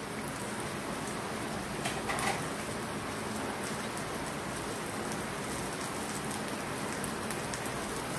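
Chicken and vegetables sizzling steadily in oil in a frying pan, with a couple of faint clicks about two seconds in.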